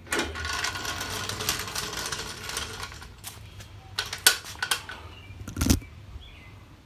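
Hydraulic floor jack being let down under the car: a rushing noise for about three seconds as the car settles onto its tyres, then several sharp metal clanks and a heavier thump as the jack is pulled out from under it.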